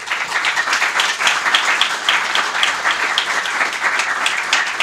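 Audience applauding. The clapping starts suddenly and keeps up steadily.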